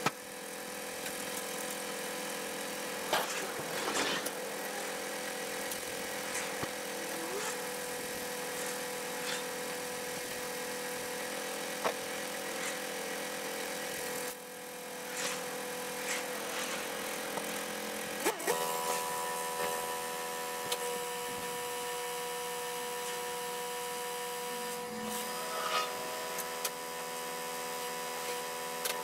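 Recovery truck's hydraulic tilt-and-slide bed in operation, unloading a van: a steady mechanical whine with a few clunks, its tone changing about eighteen seconds in.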